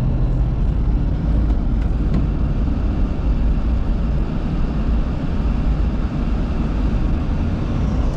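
Truck driving, a steady low engine and road rumble.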